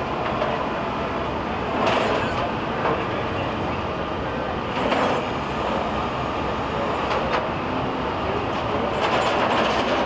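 Steady rumble of vehicles and engines, swelling briefly a few times.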